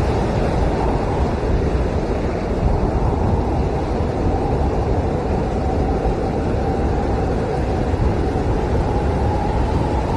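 Blizzard wind howling steadily, a dense, unbroken rush of noise heaviest in the low range.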